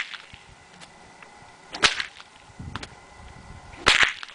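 Bull whip cracking twice, about two seconds apart, each a sharp, loud crack with a short ring after it.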